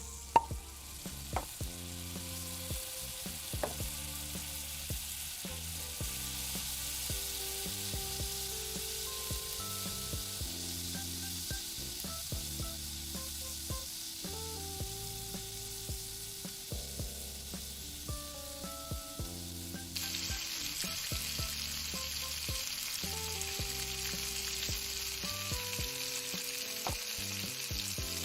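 Frying sizzle, a steady hiss that turns louder and brighter about twenty seconds in, with a few light clicks near the start. A soft low melody plays underneath.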